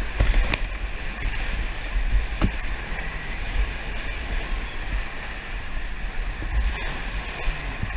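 Whitewater rapids churning close around an inflatable raft as it is paddled through, a steady rushing with a deep rumble. Two sharp knocks stand out, about half a second and two and a half seconds in.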